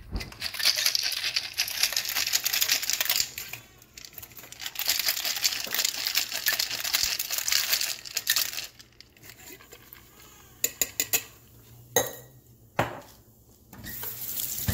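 Ice rattling inside a Boston shaker, a stainless-steel tin over a pint glass, as a cocktail is shaken hard in two bouts of about three to four seconds each. Then come a few sharp clinks and knocks of metal and glass, and a short rush of running tap water near the end.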